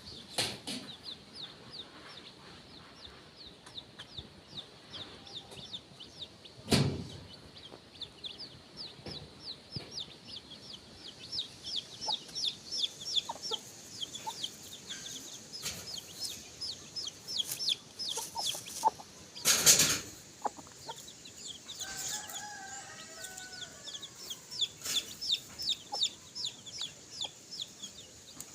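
A brood of baby chicks peeping continuously, many short high downward-sliding peeps a second, while the mother hen clucks softly near the end. Two loud sharp knocks break in, about a third of the way in and again after about twenty seconds.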